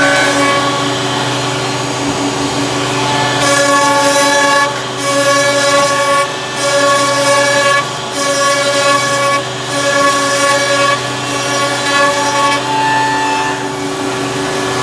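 Three-head CNC wood router running: a steady hum under whining tones that shift pitch every second or so, with short dips between moves.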